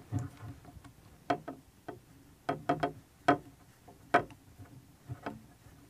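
Light, irregular clicks and ticks of a thumb screw being fitted and turned into an Electro-Voice 309A suspension mount holding a microphone, with small handling knocks from the mount's frame.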